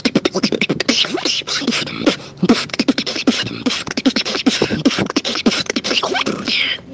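A beatboxer performing a fast routine: rapid mouth clicks and hissing snares over a low hummed bass, cutting off abruptly just before the end.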